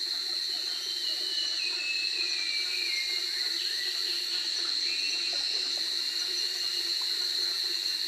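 Tropical rainforest ambience at nightfall: a steady high-pitched insect chorus of crickets, with a few faint falling whistled calls in the first few seconds.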